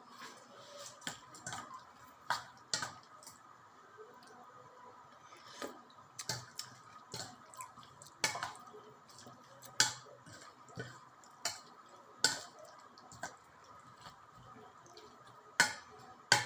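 Utensils clinking against a dish: irregular sharp clicks and taps about once a second, with a few louder ones near the end.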